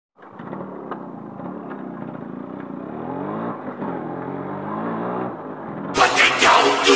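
Yamaha RX two-stroke motorcycle engine running at idle, with a couple of brief blips of the throttle in the middle that raise its pitch and let it fall back. About six seconds in the engine gives way to a sudden loud rushing noise effect.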